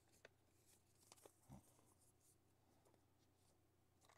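Near silence, with faint rustles and a few light taps of a paper leaflet being folded and laid down on a desk, and one soft thump about a second and a half in.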